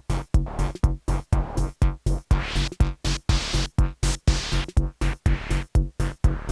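Live techno played on hardware drum machines and analog synthesizers: a steady, pumping beat at about four pulses a second over a deep bass, with a hissy noise sweep that swells and fades in the middle.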